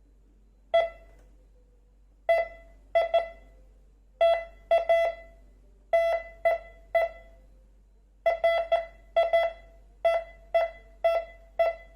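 MD-4030 metal detector beeping as metal passes over its search coil during a sensitivity test: short beeps of one mid-pitched tone, singly or in quick pairs at uneven gaps, coming faster and almost continuously in the last few seconds.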